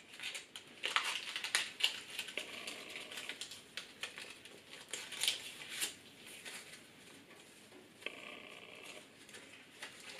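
Paper rustling and crinkling with small clicks and taps as strips of folded paper are woven through one another by hand.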